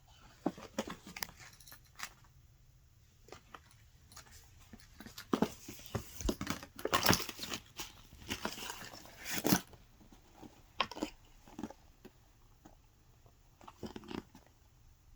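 Paper pages and card inserts being handled, with irregular rustling, crinkling and light taps. The handling is busiest and loudest in the middle, with the sharpest rustles about seven and nine and a half seconds in.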